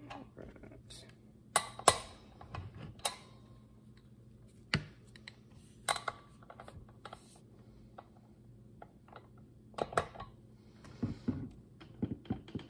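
Metal clanks and knocks of a wrench working on the clutch of an Echo CS-590 chainsaw as the clutch is tightened down. The two loudest knocks come close together about two seconds in, single ones follow every second or two, and a quick run of small clicks comes near the end.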